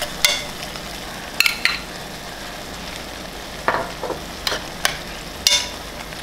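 A metal spoon stirring ground sausage meat and tomatoes in an enamelled pot, clinking and scraping against the pan about eight times over a steady sizzle of frying.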